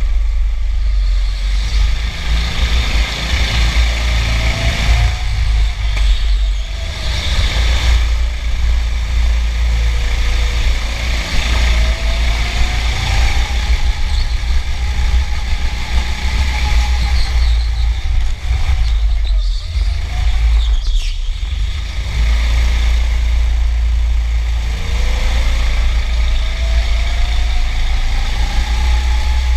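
Go-kart heard from onboard, running laps: its motor's pitch rises as it accelerates and drops back off several times, over a heavy low rumble of chassis vibration.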